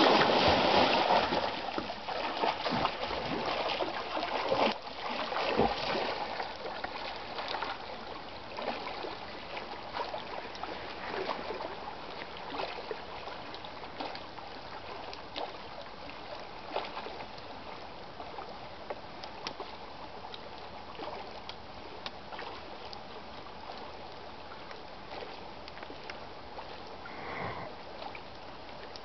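A person jumping from a dock into lake water with a big splash, followed by splashing swimming strokes that grow fainter as the swimmer moves away.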